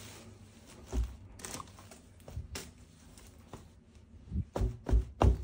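Light plastic knocks and clicks from handling toy gun parts and their packaging: a single knock about a second in, a few softer ones, then four louder ones in quick succession near the end.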